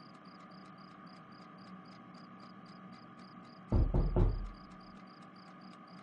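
Crickets chirping at a steady pace of about four chirps a second over a faint steady hum. About four seconds in come three loud knocks at a door.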